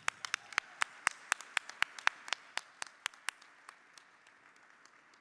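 Audience applauding, with sharp single claps standing out at about four a second over the crowd's clapping. The applause thins out and fades through the second half.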